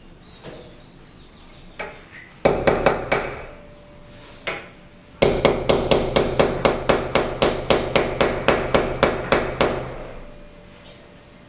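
Hammer striking a chisel to chip mortar out from around a glass block. A few scattered taps come first, then a quick run of blows at about four a second for several seconds, each with a short metallic ring.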